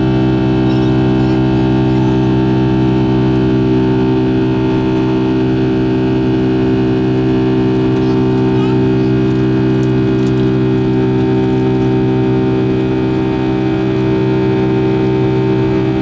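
Boeing 757-200's Pratt & Whitney turbofan engine heard from the cabin during the climb-out after takeoff. It is a loud, steady drone made of several humming tones layered over a rushing noise.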